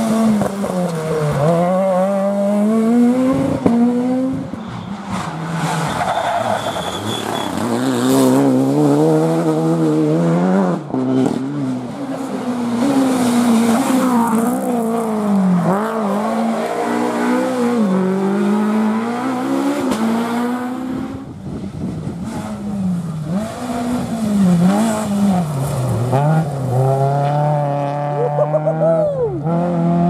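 Rally car engines at full throttle, revving up and dropping back repeatedly through hard gear changes as the cars pass one after another, with tyres squealing as a car slides through a bend.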